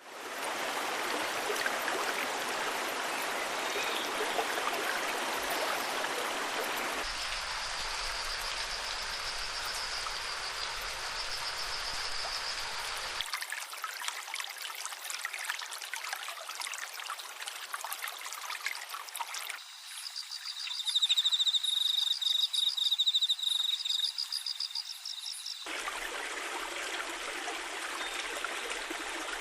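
Steady rushing of running water, heard in several short clips cut together. A high pulsing trill joins it in two of the clips, loudest about two-thirds of the way through.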